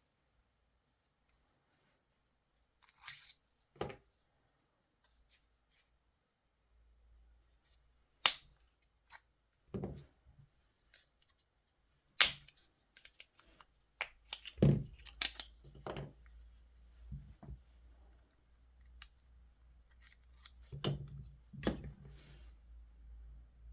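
Scattered sharp plastic clicks and snaps, a second or several apart, from a Volkswagen Passat remote key fob being handled and taken apart for a battery change.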